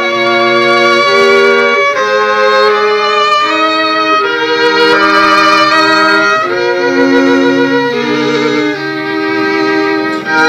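Background music led by a bowed string instrument playing a wavering melody line that steps from note to note, over lower held notes.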